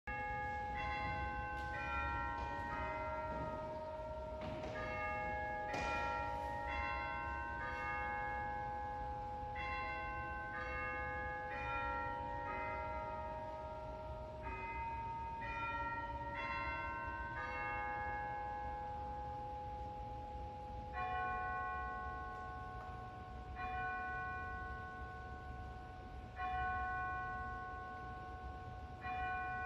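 Church bells chiming a tune of ringing struck notes at several pitches, then a single bell tone tolling four times, about three seconds apart.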